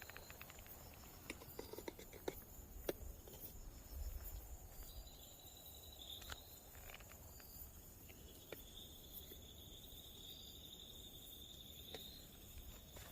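Faint insects calling: a steady high trill throughout, with a lower chirping call that comes and goes and then holds steady for a few seconds from about eight and a half seconds in. Scattered soft clicks and steps underneath.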